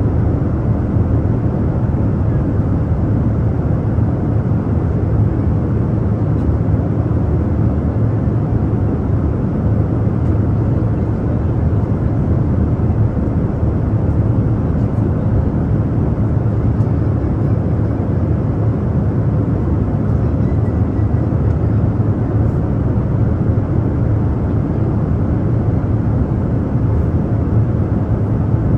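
Airplane cabin noise in flight: a steady, even rush of engine and airflow noise, heaviest in the low end, with a faint steady hum.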